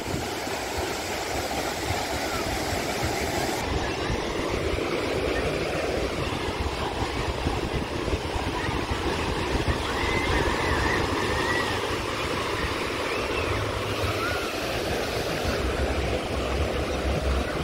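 Surf breaking and washing up the sand: a steady rush of waves, with a low rumble of wind on the microphone.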